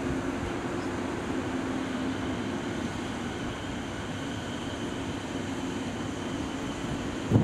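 A 209 series electric commuter train pulling slowly into the station with a steady running noise and a faint high whine, over the hum of a 583 series sleeper train standing with its equipment running.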